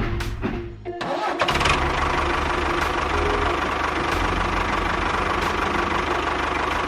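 Background music with a percussive beat for about a second, then an engine starts and runs steadily.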